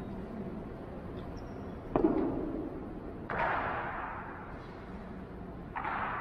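Honor guard rifle drill: three sharp impacts, about two seconds in, a little past three seconds, and near the end, each trailing a long echo in a marble hall.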